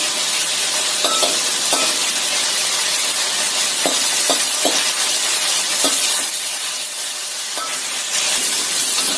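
Chicken thigh pieces sizzling steadily as they fry in oil in a wok. A metal spatula scrapes and knocks against the wok every second or so as the pieces are turned to brown evenly.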